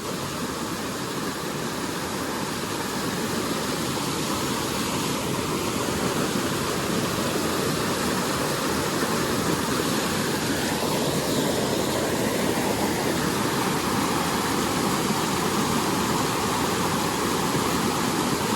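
Steady rush of creek water tumbling over small waterfalls into pools.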